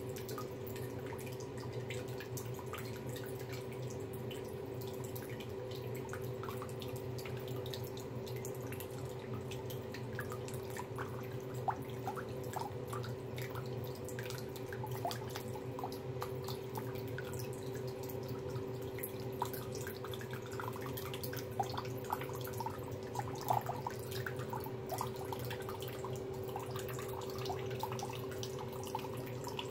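A thin stream of tap water running from a bathroom faucet into the sink, with small irregular drips and splashes that grow busier partway through, over a steady hum.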